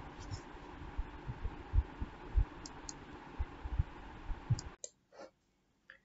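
Room tone: a steady faint hiss with scattered low thumps and a few sharp clicks. It cuts off abruptly to dead silence about five seconds in.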